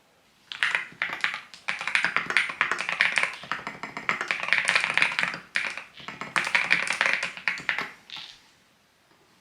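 Typing on a mechanical keyboard: a fast run of key clacks starting about half a second in, with a couple of short pauses, stopping about a second before the end.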